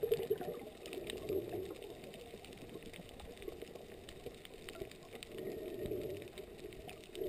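Muffled underwater noise picked up by a camera underwater: a low, wavering rush that swells and fades, with scattered faint clicks.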